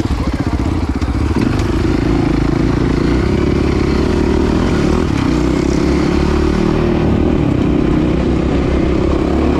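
Dirt bike engine running steadily, a loud, even pulse with no revving.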